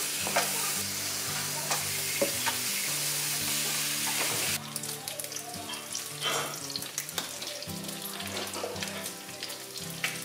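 Bacon frying in a pan, a dense sizzle with light clicks of a fork turning the strips. The sizzle drops suddenly to a lower level about four and a half seconds in.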